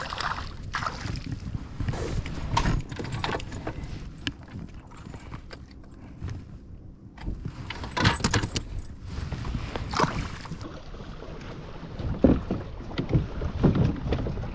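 Irregular knocks, clicks and clatter of fishing gear being handled on a plastic kayak, with a small fish splashing at the surface at the start and low wind rumble on the microphone.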